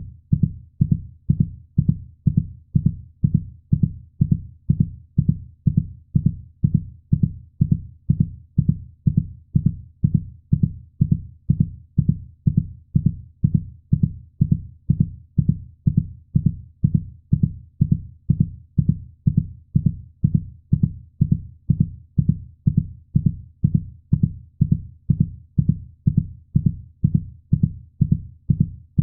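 Heartbeat sound: a fast, even run of soft, low thumps that repeats without change.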